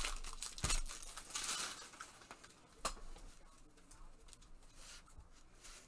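Foil trading-card pack wrapper crinkling as it is handled, fading over the first two seconds, with a couple of sharp clicks as cards are handled, then only faint rustling.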